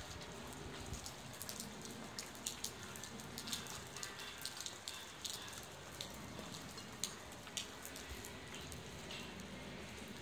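Rain falling on wet pavement: an even hiss with irregular sharp drop ticks, along with footsteps on the wet ground.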